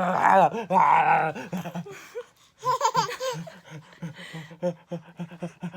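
A baby laughing hard in bursts, with a short lull partway through and quicker, choppier laughs toward the end.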